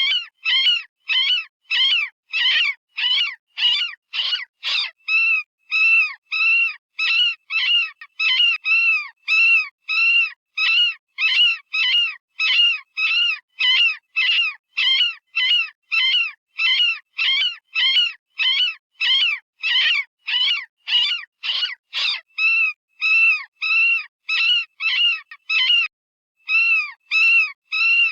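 Synthetic rabbit distress call from animal-sound software, the kind used as a predator-hunting call: short, high-pitched squealing screams repeated about twice a second, each rising then falling in pitch, with a pause of about a second near the end.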